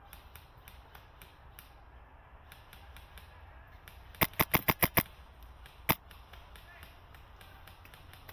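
Wolverine MTW HPA airsoft rifle firing a quick string of six shots in under a second, then a single shot about a second later.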